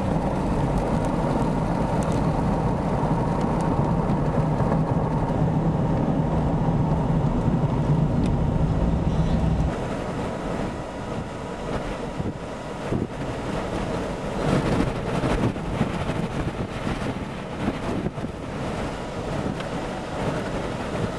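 Noise inside a car on the road: steady road and engine rumble with a faint steady whine. About ten seconds in it cuts to a weaker, uneven rush of wind and fan noise, the car's defroster and inverter cooling fans, with the tornado's roar possibly underneath.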